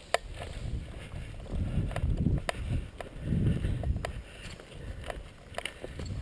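Low rumbling wind and movement noise on an action camera's microphone, swelling twice, with a few scattered sharp clicks.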